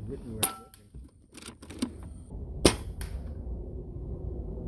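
Two air-rifle shots about two seconds apart, with several fainter clicks between and after them.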